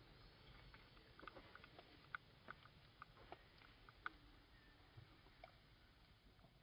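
Near silence with about a dozen faint, irregular short clicks and ticks.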